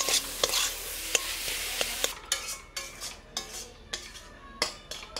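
Metal spatula stirring and scraping minced chicken around a hot metal kadai, the keema sizzling as it is mixed into the masala. About two seconds in the sizzle drops away, leaving separate scrapes and taps of the spatula on the pan.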